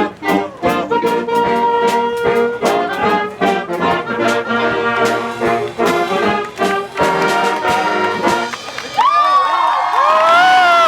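Brass band playing a tune with drum hits. The music stops about a second before the end and voices take over, calling out.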